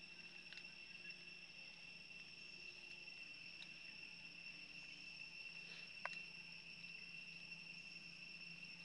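Faint insect chorus: a steady, even, high-pitched trill, with a few faint ticks, one about six seconds in.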